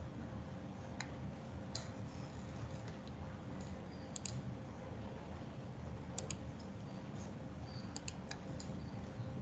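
Scattered clicks of a computer mouse and keyboard, a few at a time, some in quick pairs, over a steady low background hum.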